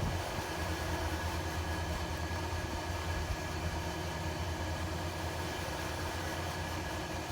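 Steady drone of a running fan, a low hum with a few constant higher tones.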